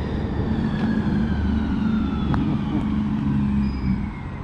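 A motor vehicle's engine running close by as it passes, a steady low hum that eases off near the end while its higher tones slowly drop in pitch.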